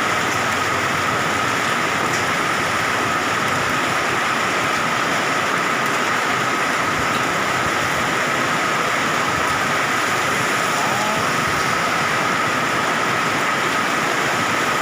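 Heavy rain mixed with hailstones pouring down and pelting hard surfaces, a dense, unbroken hiss and patter at a steady level. A faint steady high tone runs underneath.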